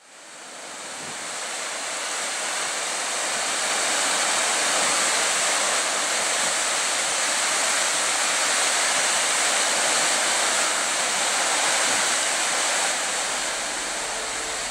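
Water pouring over a weir below sluice gates and tumbling onto rocks: a steady, full rushing roar that fades in over the first few seconds and then holds even.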